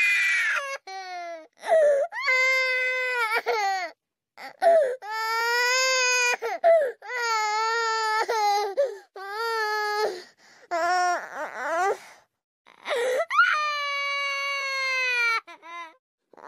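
A baby crying: a series of long cries of about one to two seconds each, with short pauses between them.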